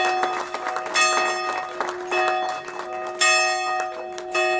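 Church tower bell being rung, struck about once a second, each stroke ringing on under the next.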